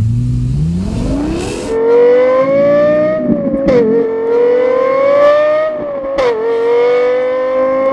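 Lexus LFA's 1LR-GUE 4.8-litre V10 accelerating hard through the gears. The revs climb fast from low in the first second or so, then keep rising, broken by two quick upshifts. Each upshift is a brief dip in pitch with a sharp crack, one a little before halfway and one near the end.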